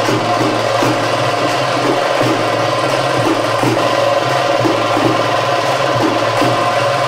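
Ritual music with a steady drone and regular percussion strokes, evenly repeated.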